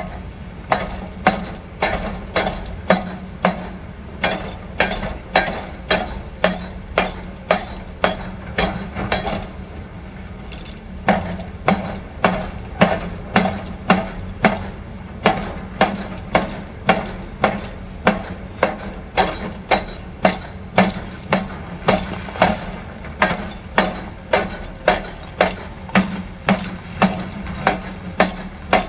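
Steady hammering: sharp impacts at about two a second over a constant low machine drone. The blows pause for about a second around ten seconds in, then carry on.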